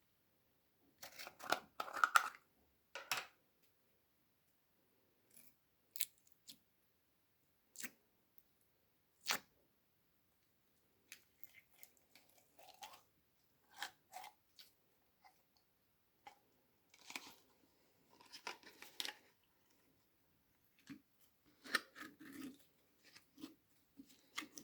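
Slime being squished and pulled, giving short sticky crackles and pops in irregular clusters with silent gaps between. The loudest cluster comes a couple of seconds in.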